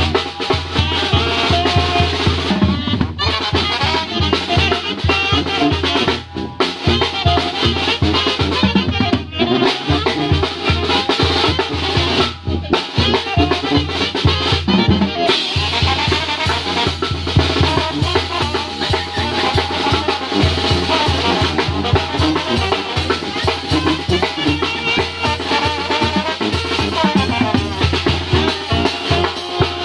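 Live banda-style brass band playing. Sousaphone, saxophones and trumpet or trombone carry the tune over snare drum, bass drum and cymbal, with the sousaphone pumping a steady bass line. In the first half the whole band stops together for a moment about every three seconds, then plays straight on.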